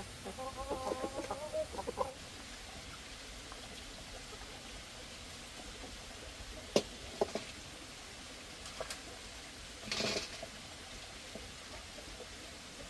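Chickens clucking in a quick run of short notes for the first two seconds. Later there are a few sharp clicks, and a brief noisy burst about ten seconds in.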